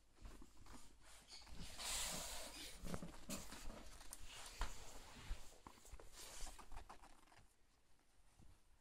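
Soft rustling and scratching of terry-towel bedding in a plastic tub, with scattered small clicks and knocks; it dies down near the end.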